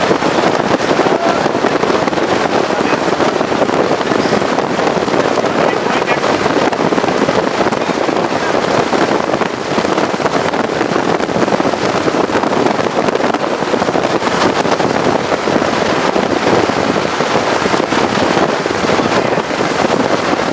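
Loud, steady rushing wind buffeting the microphone, with constant crackling.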